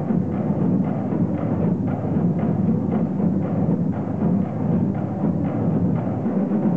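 High school marching band percussion playing a steady drum beat, with repeated drum strikes.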